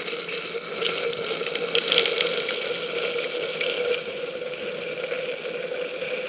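Water running or pouring steadily as camp coffee is being made.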